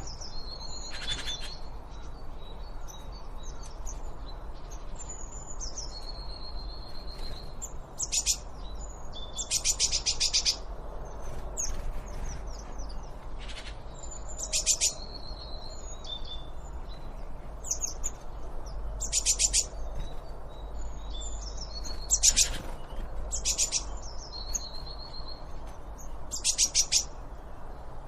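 Songbirds singing: short, bright trilled phrases repeated every few seconds, mixed with a few held whistled notes, over a steady low rumble.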